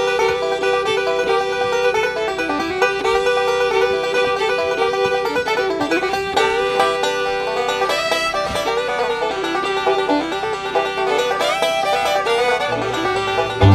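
Instrumental background music with a plucked banjo lead in a bluegrass style, steady throughout, with a low bass part coming in near the end.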